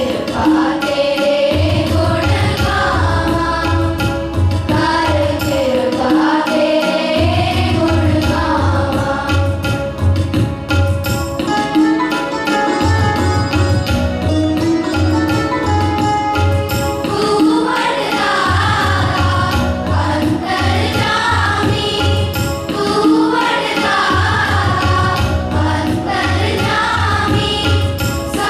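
A children's group singing a Sikh Shabad (devotional hymn) together, with a rhythmic accompaniment that keeps a steady beat.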